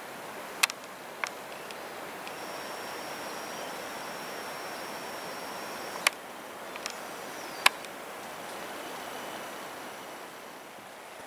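Steady rush of water from the falls and mountain streams, broken by a few sharp clicks, with a faint thin high whine in parts.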